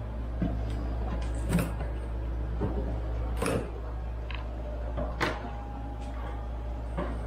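Cardboard box being cut open and unpacked: scissors snipping the packing tape and the flaps scraping and knocking as they are pulled open, a few sharp bumps standing out. A steady low hum runs underneath.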